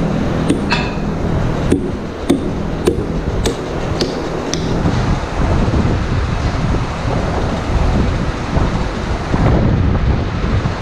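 Heavy rubber stall mats being handled, with a run of sharp knocks over the first five seconds, over a steady loud mechanical rumble.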